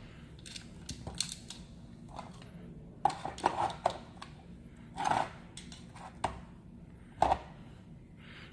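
Handling noise from wiring work: wires rustling and plastic parts clicking, with a few louder knocks as a plastic LED driver box is pressed into and moved about the plastic junction box on the back of the mirror.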